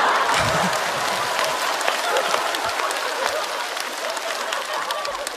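Studio audience applauding a joke, the clapping slowly dying away.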